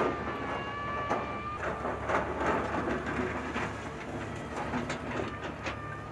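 Heavy construction machinery at work: a steady low diesel drone with irregular metallic clanks and knocks. A high, steady metallic squeal is heard for the first second and a half and again near the end.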